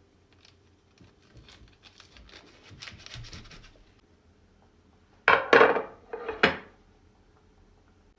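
Household objects being handled: soft rustling and scraping, then three loud clattering knocks about five to six and a half seconds in.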